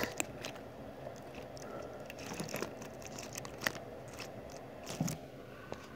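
Scattered faint clicks, ticks and scrapes with a soft thump about five seconds in: handling noise of a phone camera being moved about against the side of an ant farm enclosure.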